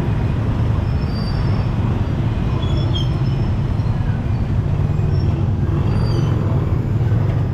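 Street traffic dominated by motorcycle-sidecar tricycles and motorbikes running close by: a steady, loud low engine rumble, with a few faint high chirps over it.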